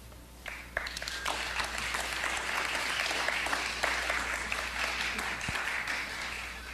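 Audience applauding, starting about half a second in, dense for several seconds and tapering off near the end.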